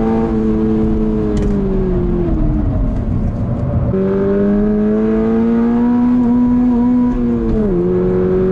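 Toyota GR86's 2.4-litre flat-four boxer engine heard from inside the cabin on a circuit. Its note falls as the car slows off the throttle for a corner. About four seconds in the throttle comes back on and the engine climbs, then near the end the pitch drops quickly on an upshift of the six-speed manual and starts climbing again.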